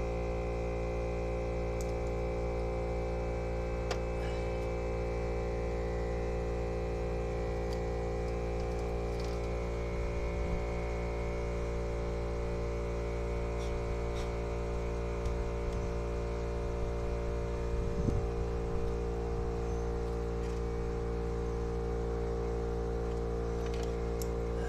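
McGraw 8-gallon 150 PSI air compressor running with a steady, unchanging hum. A few light clicks and a small knock about 18 seconds in come from handling tools.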